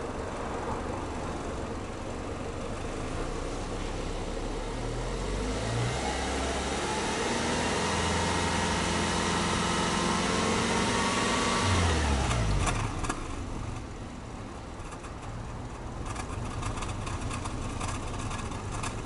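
Subaru Legacy Touring Wagon 2.5i's flat-four engine heard at the tailpipe: it idles, is free-revved in park from about five seconds in, and holds the raised revs for several seconds. It drops back to idle about twelve seconds in.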